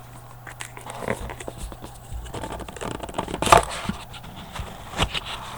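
Hands opening a sealed box of trading cards: irregular rustling and scraping of cardboard and wrapper with a few sharp clicks, loudest about three and a half seconds in.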